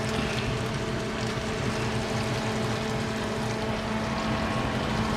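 Breaded fish fillets frying in hot grease, a steady sizzle over a steady low hum.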